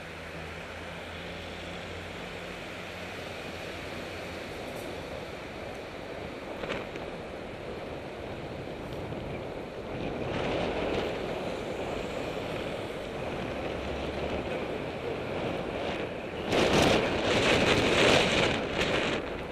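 Wind rushing over a bicycle-mounted camera's microphone while riding, mixed with city traffic and tyre noise. It swells about halfway through and grows loudest in ragged gusts near the end.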